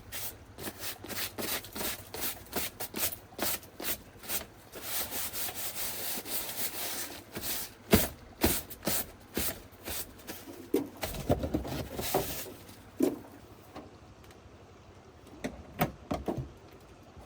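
Hand work on truck parts: a quick run of clicks, knocks and rubbing, with a longer scraping stretch about five seconds in, a low rumble around eleven seconds, and scattered knocks near the end.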